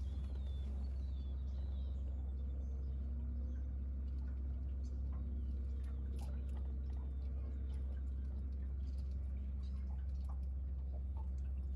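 A steady low rumble throughout, with faint, scattered small clicks and ticks as fishing line and a lure are handled.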